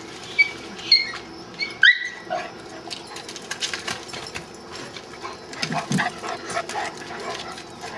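A dog whining in about five short, high-pitched cries in the first two seconds, followed by scattered clicks and rustling.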